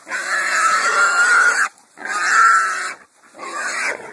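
A caught wild hog sow of about 120 lb squealing loudly, three long squeals one after another, as she is held down by catch dogs and men.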